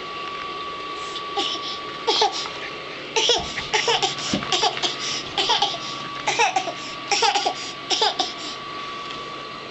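Baby laughing in a long run of short giggles, starting about a second in and stopping near the end, over a faint steady high tone.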